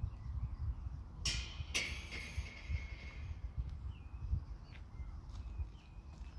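Outdoor ambience: an uneven low rumble of wind on the microphone, with faint bird chirps. About a second in comes a short burst of rattling noise, and a second, longer one follows half a second later and fades out over about a second and a half.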